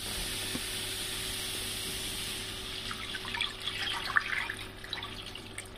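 Meat broth poured from a bowl into a hot frying pan of browned meatballs in tomato sauce, splashing onto the pan. A steady pouring hiss eases after about two seconds into scattered pops and spatters.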